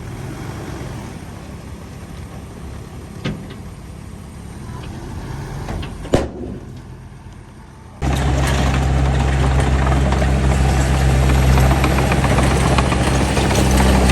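Heavy diesel engine of earthmoving machinery running. It is fainter at first, with a sharp knock about three seconds in and a louder one about six seconds in. About eight seconds in it jumps abruptly to a loud, close, steady drone.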